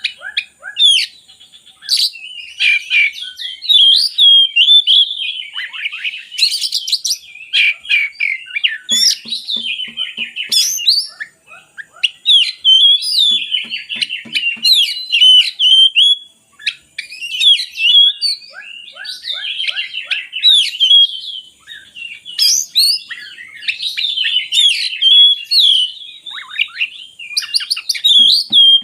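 Oriental magpie-robin (kacer) singing a long, unbroken, varied song of quick whistles, chirps and trills, with a few fast rattling runs now and then.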